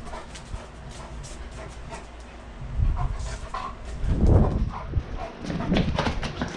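A large dog vocalizing during rough play, with two louder low bursts about three and four seconds in and short, quick sounds near the end.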